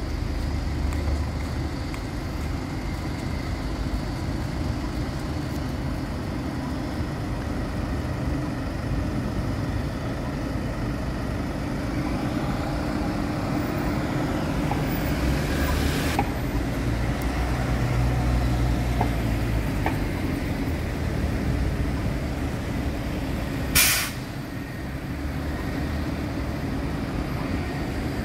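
Road traffic running steadily beside a light rail line as a CAF Urbos tram pulls in and stops at the platform. Near the end comes one short, sharp hiss of released air.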